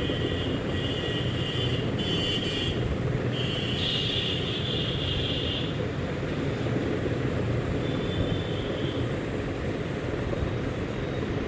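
Steady low rumble with a thin high whine that comes and goes several times.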